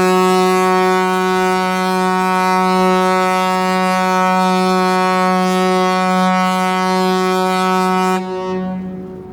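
Ship's horn sounding one long blast on a single steady low note, rich and buzzy. It cuts off about eight seconds in and then dies away.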